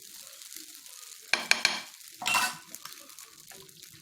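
A dosa topped with beaten egg sizzling faintly on a hot griddle. There are a few sharp utensil clicks about a second and a half in, then a short, louder scraping rush a little past two seconds.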